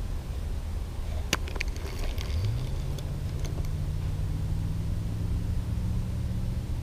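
A boat motor hums low; about two seconds in its pitch rises briefly and then holds steady, over a low rumble. A sharp click comes about a second in.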